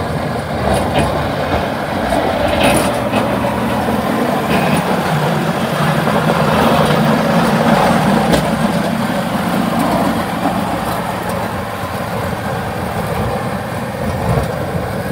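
Massey Ferguson 1840M compact tractor's 40-horsepower turbocharged diesel engine running steadily under load while it pushes snow with a front blade. It gets louder as the tractor passes close, about halfway through, then drops a little as it moves away.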